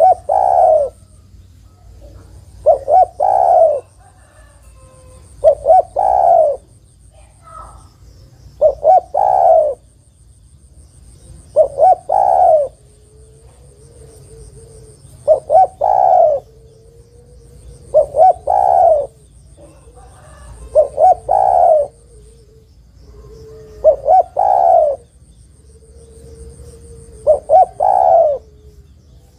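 Female spotted dove calling to a male with its cooing song: each phrase is a couple of short notes and then a longer coo, repeated about every three seconds, about ten times. A faint high buzz comes and goes behind it.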